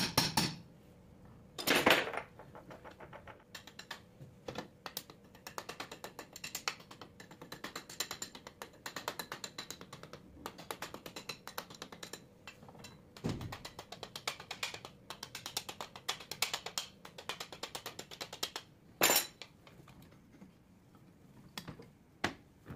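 Reassembly of a 24-volt alternator: a sharp hammer knock about two seconds in, then long runs of rapid, light metal clicking and tapping from hand tools on the housing, and another sharp knock about three-quarters of the way through.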